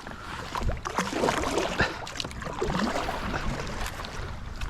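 Water splashing and sloshing around a kayak, with small knocks and rattles as a just-caught bass is unhooked.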